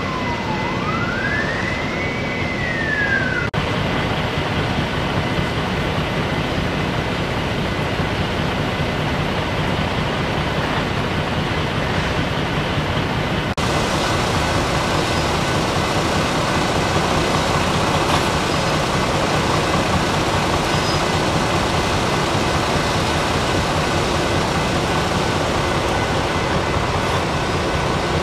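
An emergency vehicle siren wailing, falling and rising in pitch, which cuts off about three and a half seconds in. After that, a loud, steady rumble of idling emergency vehicles.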